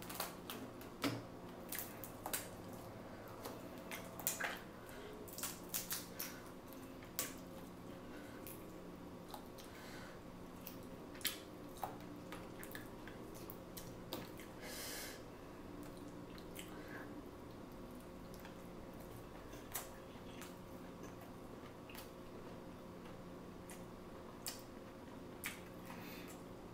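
Close-miked eating: quiet chewing and squishy mouth sounds, likely from the seafood-boil potato, with scattered small clicks and taps throughout and a brief rustling swish about halfway through.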